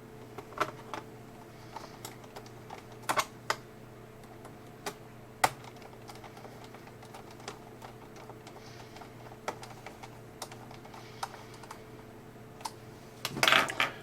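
Small screws being driven back into a laptop's plastic bottom cover with a small screwdriver: scattered light clicks and ticks of metal on plastic, with a louder clatter of handling near the end. A steady low hum runs underneath.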